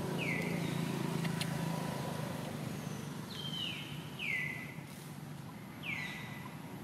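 Four short high animal calls, each sliding quickly down in pitch and then levelling off, spaced irregularly a second or more apart, over a low steady rumble that fades a little after the first couple of seconds.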